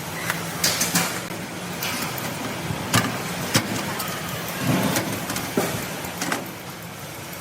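A motor vehicle engine running steadily, with scattered sharp knocks and clatter.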